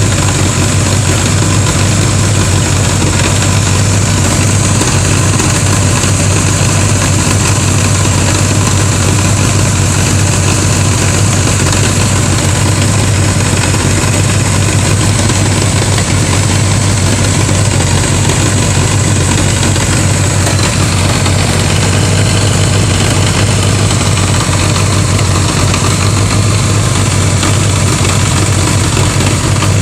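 Honda GL1100 Gold Wing flat-four engine idling steadily, with a strong low hum.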